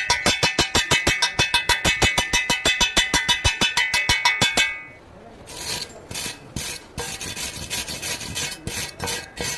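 Rapid rasping strokes, about ten a second with a ringing edge, for the first four and a half seconds, then slower, irregular scraping strokes.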